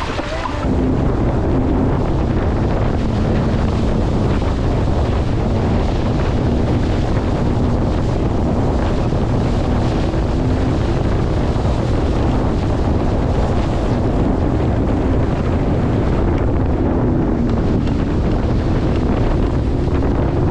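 Sea-Doo Fish Pro jet ski running under way, a steady engine drone under heavy wind buffeting on the microphone; the level jumps up about a second in as it gets going.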